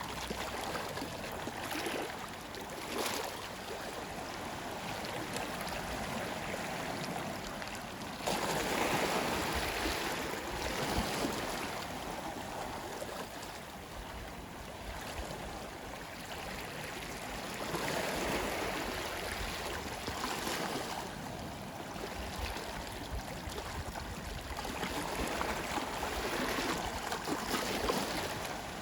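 Sea waves washing onto a shore, a steady wash that swells in a few slow surges and ebbs between them.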